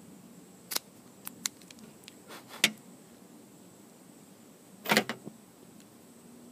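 A cigar being lit and puffed: a few short clicks and pops in the first three seconds, then a brief burst of breath, a puff or exhale of smoke, about five seconds in.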